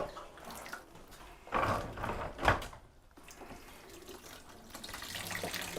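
Water running from a water heater's hose into a bucket, a weak flow that grows louder near the end; the owner calls it a trickle. A couple of brief handling knocks come about halfway through.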